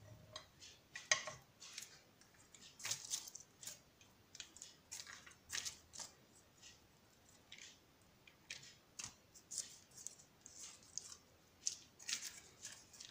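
Faint, irregular scraping and rustling of soft dough being cut with a blade and then rolled by hand on a wooden board.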